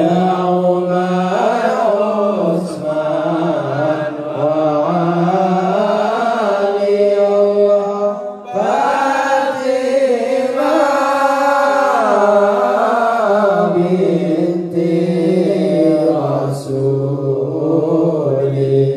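Men's voices chanting serakalan, a devotional sholawat in praise of the Prophet, together without instruments. The long, winding sung phrases break off briefly about eight and a half seconds in before the next phrase begins.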